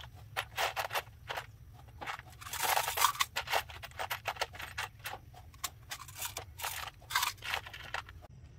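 Loose metal screws clattering and scraping in a plastic tub as a hand rummages through them: a run of short clicks with longer rattling scrapes about two and a half seconds and seven seconds in.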